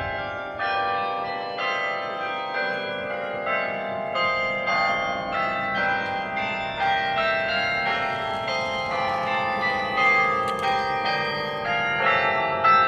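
The Berlin Carillon's 68 hand-played tower bells ringing out a melody. The struck notes come about one or two a second, and each keeps ringing under the next.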